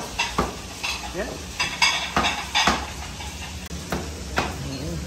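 Kitchen utensils clinking and knocking: about nine irregular sharp knocks, a spoon against a glass bowl and tools on a steel counter.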